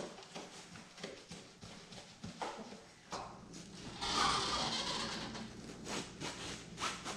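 Upholstery fabric cover and an oriented strand board sofa panel being handled: a sharp knock at the start, scattered light knocks and taps of wood, then a rustle of fabric being pulled over the board from about four seconds in.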